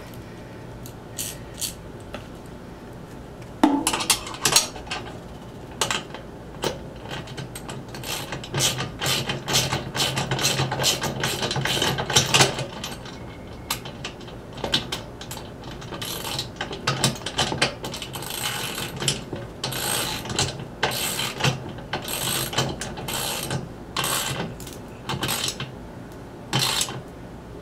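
Ratchet socket wrench clicking in quick runs as an axle nut on a generator wheel is tightened, with occasional metal knocks.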